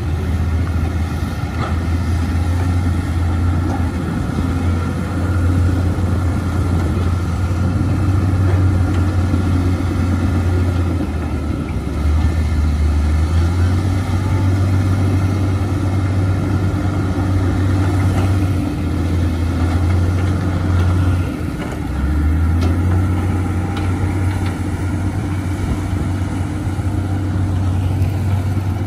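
Diesel engines of Caterpillar 320C excavators and a crawler bulldozer running under work as they dig and push mud. A steady low engine drone whose pitch steps down and back up about twelve seconds in and again around twenty-one seconds, where it briefly dips in loudness.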